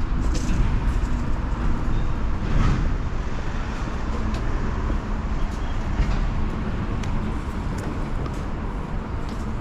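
Outdoor street ambience: a steady low rumble of road traffic, with a few faint clicks scattered through it.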